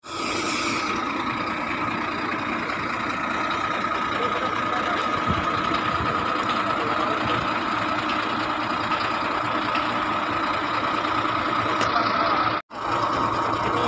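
Heavy machinery engine running steadily, with a steady whine over the engine noise. The sound cuts out for an instant near the end, then carries on unchanged.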